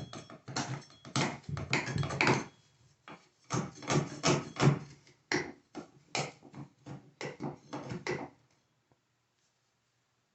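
Old bathtub caulk being scraped and pulled away with a hand tool: a run of irregular short scraping strokes that stops about eight seconds in.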